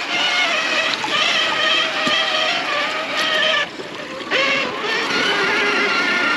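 Traxxas TRX-4 RC crawler's electric motor and gearbox whining steadily under throttle. The whine cuts out for about half a second a little past the middle, then picks up again.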